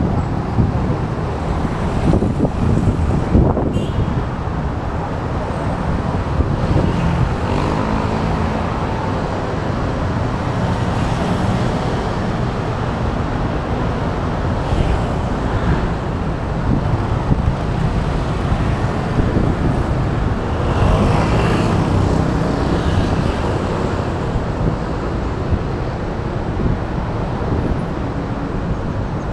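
Busy city road traffic: a steady rumble of cars and motorbikes passing close by, with a few louder vehicles swelling up and fading, the loudest about two-thirds of the way through.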